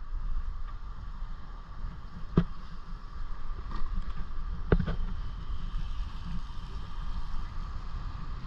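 Wind rumbling unevenly on the microphone over a steady hiss, with two sharp knocks about two and a half and nearly five seconds in.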